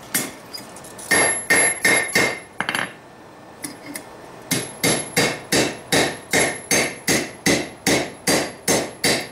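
Hand hammer striking a red-hot split railroad spike on the anvil horn: ringing steel-on-steel blows, a short flurry, a pause of about two seconds, then a steady run of about three blows a second. The blacksmith is straightening and truing the forked spike, which has gone crooked.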